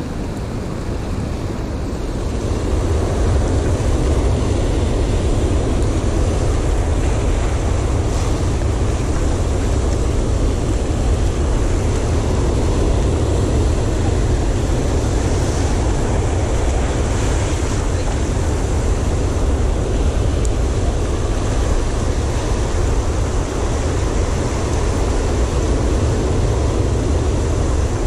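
Sea surf breaking and washing over a rocky shoreline, with wind buffeting the microphone: a loud, steady rush that is heaviest in the low rumble.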